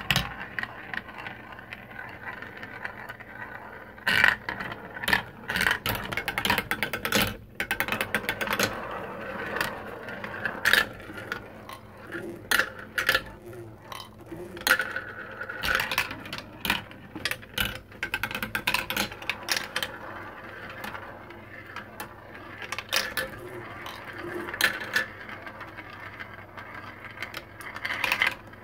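Marbles rolling through a plastic marble run, with a continuous rolling rattle in the plastic tracks and funnels. It is broken by many sharp clicks and clacks as the marbles drop through the tubes and strike the pieces, some in quick clusters.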